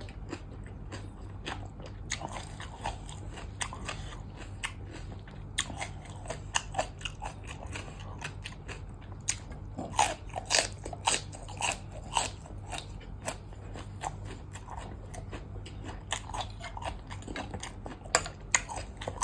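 A person chewing and biting food, with many irregular crisp crunches, densest around the middle. The food is papaya salad with fresh blue swimmer crab and raw okra. A faint steady low hum runs underneath.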